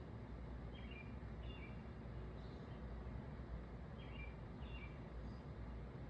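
A bird chirping in short calls, two small groups of two or three, over a steady low outdoor background rumble.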